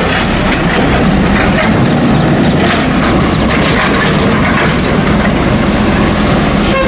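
Automated side-loader garbage truck working a collection: its diesel engine runs loudly and steadily while the hydraulic arm lifts a wheeled trash cart and tips it into the hopper, with scattered knocks and rattles from the arm and cart.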